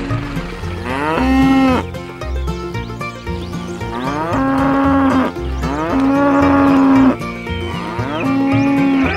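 Cow mooing: four drawn-out calls, each sliding up in pitch and then holding, over a steady low repeating beat.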